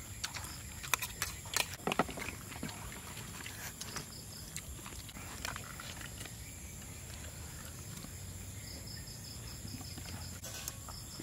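People eating with spoons from plastic plates: sharp clicks of spoons and mouth noises of chewing, thickest in the first two seconds. Behind them runs a steady high chirring of night insects, with a quick run of ticks near the end.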